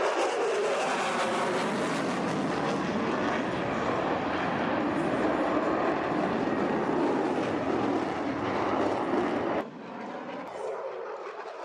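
Loud, steady aircraft engine roar that cuts off abruptly about ten seconds in, leaving a quieter background noise.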